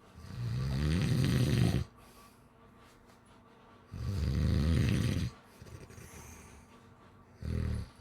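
A sleeping person snoring: two long, low-pitched snores a few seconds apart, then a shorter one near the end.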